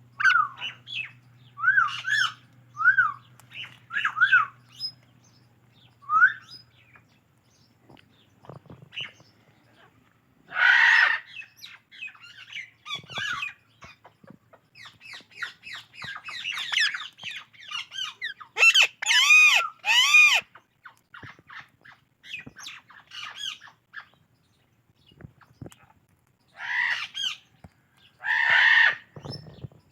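Indian ringneck and alexandrine parakeets calling. A quick run of short chirps comes first, then harsh squawks at intervals, with a cluster of loud ringing calls about two-thirds of the way through.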